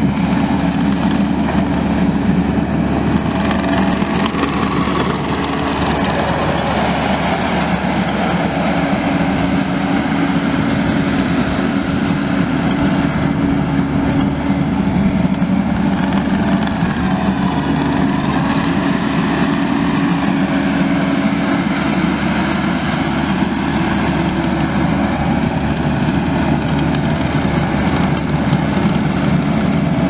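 Kubota SVL90-2 skid steer's 3.8-litre four-cylinder turbo diesel engine running at a steady level.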